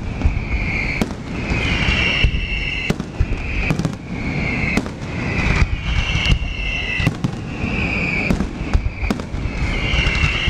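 Fireworks display: a string of high whistles, about one a second, each sliding a little in pitch, among repeated sharp cracks and bangs over a continuous low rumble of bursts.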